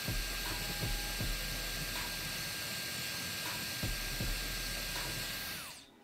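JRL Forte Pro hair dryer running: a steady rush of air with a thin high motor whine. Near the end it switches off and the whine drops away.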